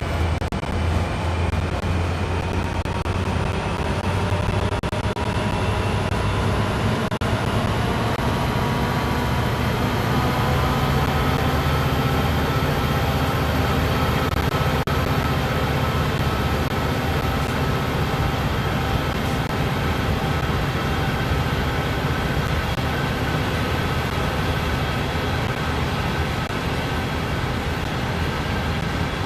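CSX diesel freight train running with a steady low rumble and hum, with several faint higher tones drifting slowly in pitch.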